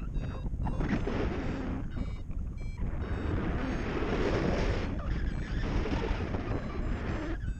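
Wind rushing over the camera microphone in paraglider flight, surging in gusts. It is strongest in the middle and drops off abruptly just before the end.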